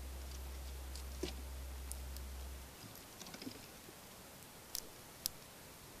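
Scattered sharp clicks and cracks of a southern flying squirrel husking and chewing sunflower seeds, the two loudest close together near the end. A low steady hum underneath stops a little under halfway through.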